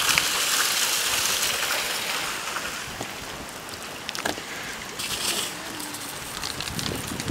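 Rain falling and water running off, a steady wash of noise that eases after about three seconds, with a few sharp ticks.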